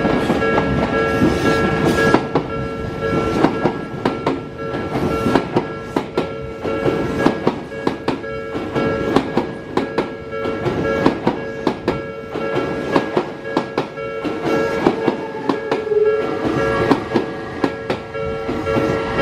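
Odakyu 8000 series train's wheels clacking over the rail joints as it runs through, a quick irregular run of clacks, over the steady ringing of a level-crossing warning bell.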